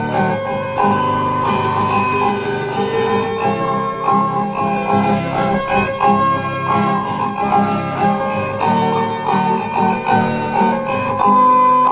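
Music: plucked string instruments over a steady jingling percussion beat.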